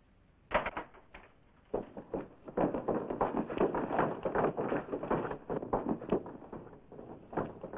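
Scuffle: quick thuds, knocks and footsteps of men struggling and running on packed dirt. A few sharp knocks come about half a second in, and the sound grows busier after about two seconds.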